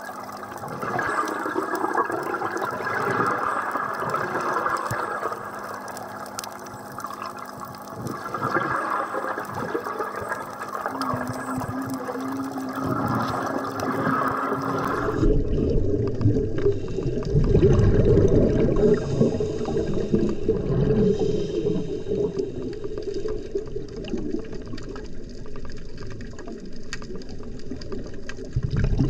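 Underwater bubbling and rushing of a scuba diver's breathing through the regulator, swelling and fading every few seconds. About halfway through it changes to a deeper, rumbling water sound.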